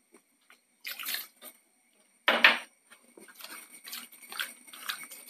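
Brief splash of brindleberry (kudampuli) soaking water poured from a glass bowl onto masala-coated fish in a pan. There is a short knock about two and a half seconds in, then faint wet squishing as a bare hand rubs the masala into the fish pieces.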